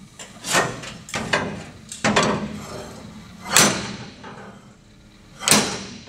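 A series of sharp metal-on-metal knocks on a car body, unevenly spaced, with the loudest about three and a half and five and a half seconds in. They come from working a tweaked firewall into line with a new floor pan.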